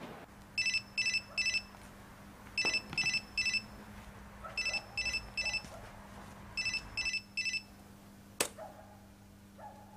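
Mobile phone ringing: a high electronic ringtone of three quick beeps, repeated four times about every two seconds, then a single click.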